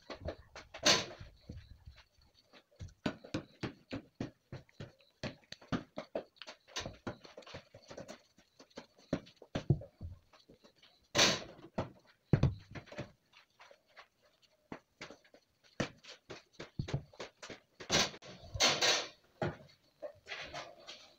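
Gloved hands handling and wiping a plastic engine oil filler cap and its rubber O-ring on paper towels: a string of small clicks, rubs and rustles, with louder rustling bursts about eleven seconds in and again near the end.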